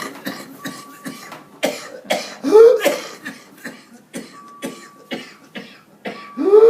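A young child coughing in rapid repeated fits, a quick string of short sharp coughs, broken twice by a rising pitched sound between fits.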